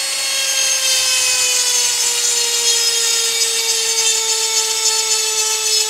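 Cordless rotary tool with a diamond grinding bit running steadily, grinding a chainsaw tooth to sharpen it. There is a high motor whine whose pitch sags slowly and slightly, under a constant gritty hiss.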